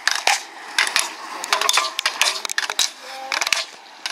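Sharp, irregular clicks and clacks, several a second, from an inline slalom racer's poles striking the gates and the asphalt during a run.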